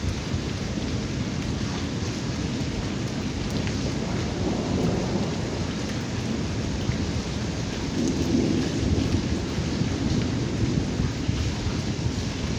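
Heavy rain falling steadily on wet ground, over a low rumble of thunder that swells about eight seconds in.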